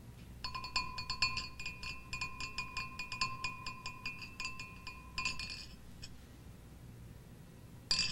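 Glass wine goblets clinking rapidly against each other, about five taps a second for some five seconds, the glass ringing on a steady note between taps. A single sharper clink comes near the end.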